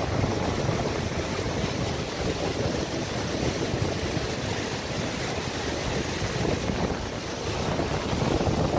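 Glacier-fed river rushing through whitewater rapids, a steady rush of water with wind on the microphone.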